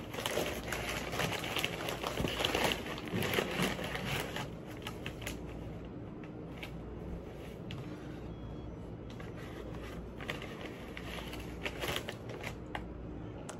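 Paper and plastic packaging crinkling and rustling as it is handled, busier in the first few seconds, then quieter with scattered light clicks.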